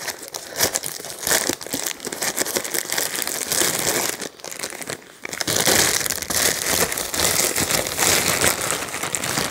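Packaging crinkling and rustling as it is handled, with two short breaks about four and five seconds in.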